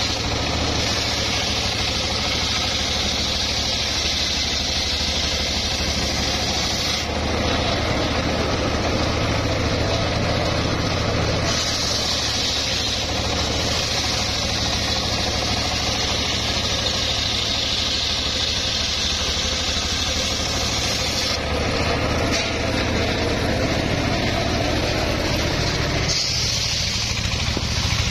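Homemade table circular saw running and ripping a log lengthwise into boards: a steady low drone under a high cutting hiss that eases off and comes back several times as the log is pushed through the blade.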